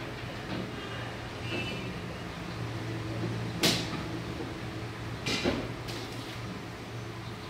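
White panels of a tool-less rocking crib knocking together as they are slotted in by hand: one sharp knock about three and a half seconds in and a quick double knock about five seconds in, over a steady low hum.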